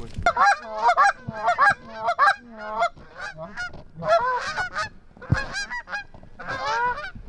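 Canada goose honking and clucking in quick runs of calls with short gaps between them. There is a dull low thump about five seconds in.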